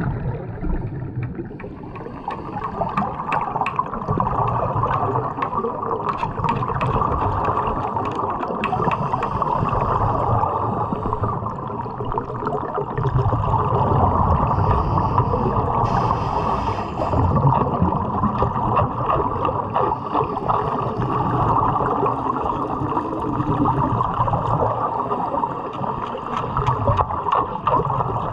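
Underwater bubbling from divers' breathing gear, with a steady rushing hiss and many small scattered crackles.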